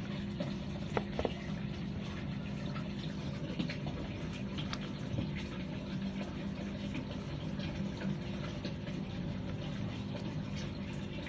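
Steady trickle of running water with a low hum underneath, and a few light clicks from black plastic net pots being handled.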